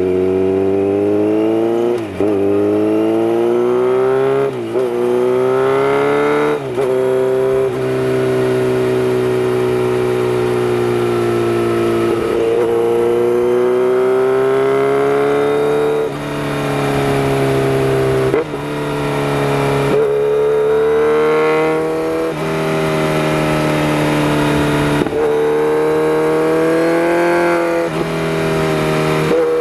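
Kawasaki Z900RS Cafe's inline-four engine running under load on a winding road. Its pitch climbs and drops back three times in the first seven seconds as it shifts up, then rises and falls with the throttle through the bends, with a few short dips.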